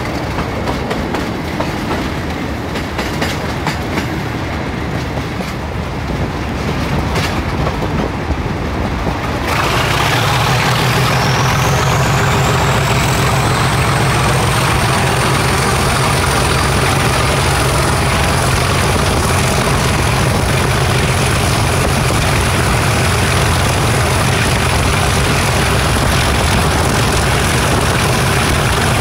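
Class 37 diesel locomotive 37425 rolling with clicks from the rail joints, then, about nine seconds in, its English Electric 12CSVT V12 engine opens up. The engine note grows louder and steady, and the turbocharger whistle rises over a few seconds to a high, steady pitch.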